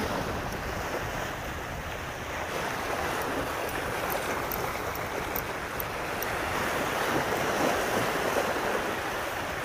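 Sea waves washing against the shore with wind buffeting the microphone: a steady rushing that swells a little after the middle.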